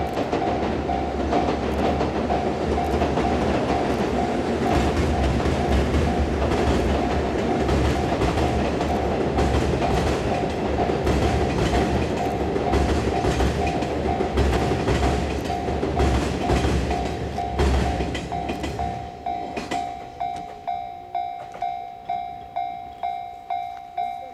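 Electric-locomotive-hauled delivery train of new E6 series Shinkansen cars crossing a steel railway bridge: a steady rumble with wheels clattering over the rail joints, fading away about three-quarters of the way through. Under it and then left alone, a level crossing warning bell dings steadily about twice a second.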